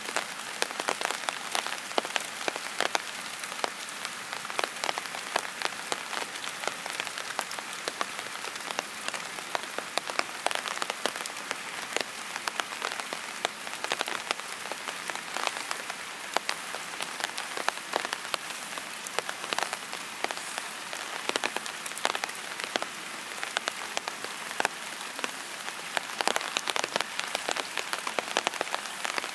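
Steady rain falling, with many separate drops tapping on a surface all through.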